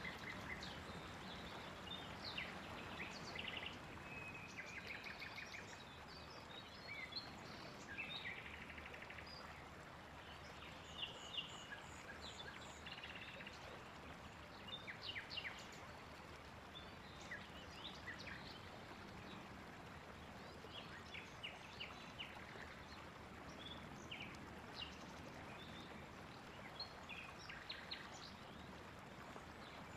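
Several songbirds chirping and trilling on and off over a faint, steady outdoor hiss.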